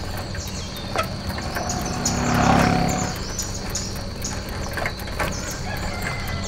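Birds chirping over a steady high insect drone. About two and a half seconds in there is a brief whoosh that swells and fades within a second.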